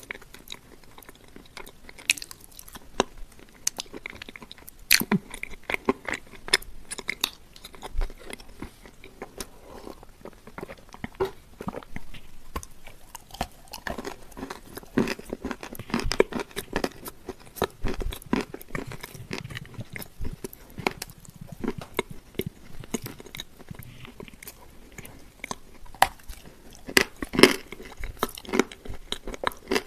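Close-miked chewing and crunching of a crumbly shortbread cookie coated in a soft, creamy paste, full of sharp wet mouth clicks and smacks, loudest in a cluster near the end.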